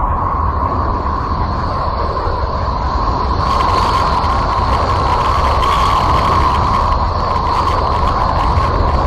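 Sonified planetary 'space sound': a steady, noisy rumbling drone with a held hum running through it. A brighter hiss joins about three and a half seconds in and thins out again around seven seconds.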